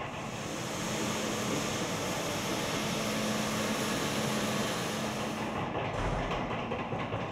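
Floor scrubbing machine running on a tiled floor: a steady motor hum over a rumbling, hissing wash of brush and water noise.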